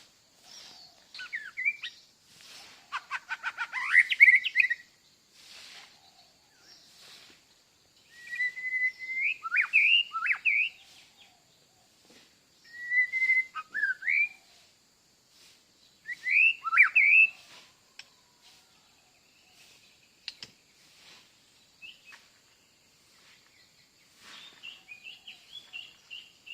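A wild songbird singing clear whistled phrases with sharp downward slurs, repeated every three to four seconds. One richer, rattling phrase comes about three seconds in.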